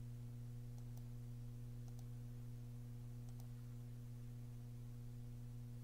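Steady low electrical hum with a few faint, short clicks.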